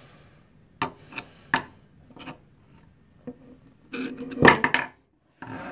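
Steel shafts of Channellock Code Blue screwdrivers clicking and clinking against each other and the wooden table as they are handled: three sharp separate clicks, then a louder clatter about four seconds in.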